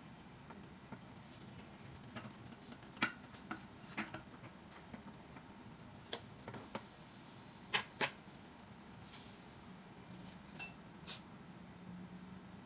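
A metal turner clicking and scraping against a small nonstick frying pan as a pancake is loosened and flipped: scattered sharp clinks and knocks, the loudest about 3 s and 8 s in, over a faint steady hum.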